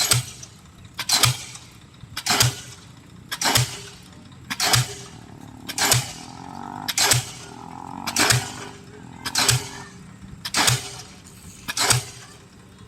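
Pile driver hammer striking a pile in a steady rhythm, about one heavy blow every 1.2 seconds, eleven blows in all, over the steady running of the rig's engine.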